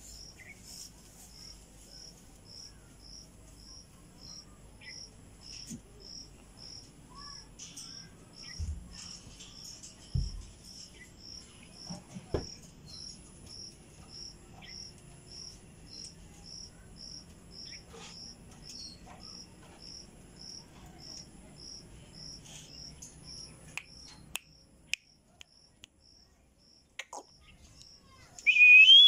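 A cricket chirping steadily, about two high chirps a second, with a few soft knocks along the way. Near the end an Indian ringneck parrot gives a sudden loud, warbling whistle-like call.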